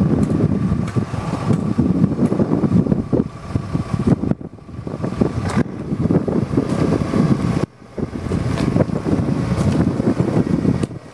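Liebherr 914 Compact excavator's engine running, a steady rough rumble with a faint steady whine above it. The sound dips briefly twice, the second time cutting out sharply for a moment.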